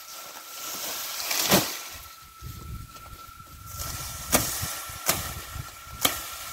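A machete chopping through the thick stalks of Capiaçu elephant grass at the base of the clump: four sharp strikes, one about a second and a half in and three more about a second apart near the end, with leaves and stalks rustling between them.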